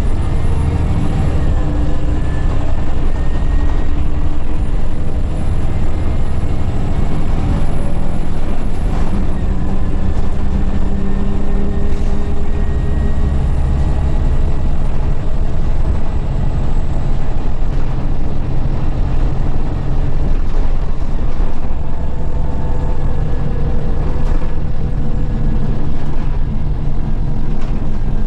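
Scania L94UB city bus heard from inside the cabin while driving: a steady engine and drivetrain rumble, its note rising and falling gently as the engine speed changes. A faint high whine climbs over the first nine seconds or so.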